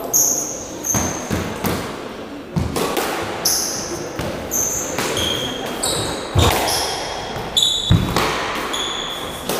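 Squash rally: the ball smacks off rackets and walls with sharp knocks every second or so, amid frequent short, high squeaks of court shoes on the wooden floor.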